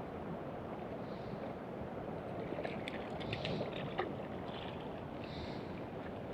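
Steady outdoor noise, like wind or water, with scattered small clicks and a few short, faint high-pitched blips.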